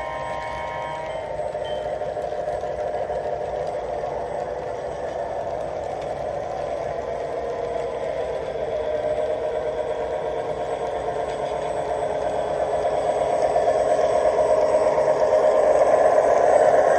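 Motorised 3D-printed model train locomotive running along the track: a steady rattle of small motor and gears that grows louder near the end as it comes closer.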